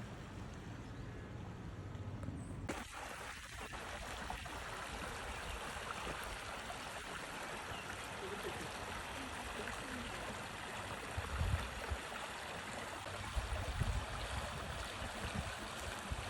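Running stream water, a steady even rush that comes in abruptly about three seconds in. Low bumps near the end.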